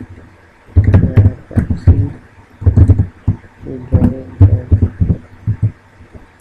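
A person's voice in several short, unclear stretches, like mumbled speech with no words made out, with a few faint clicks among them.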